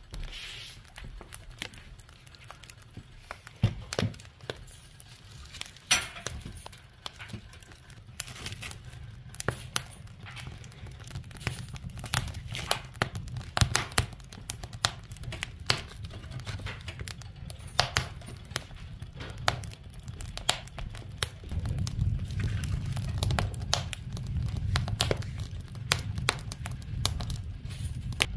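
Wood fire crackling in a wood stove's open firebox, with many sharp snaps and pops. A low rumble of flame grows louder about three quarters of the way through as fresh split logs catch.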